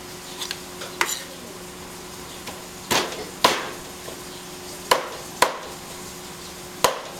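Chinese cleaver chopping raw chicken on a thick round wooden chopping block. About half a dozen heavy, sharp chops a second or two apart, several in pairs about half a second apart.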